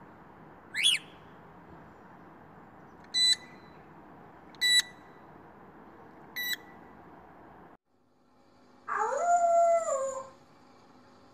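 African grey parrot mimicking sounds: a rising whistle, then three short electronic-like beeps a second and a half to two seconds apart. After a cut, a parrot imitates a wolf's howl, one call about a second long that rises, holds and falls.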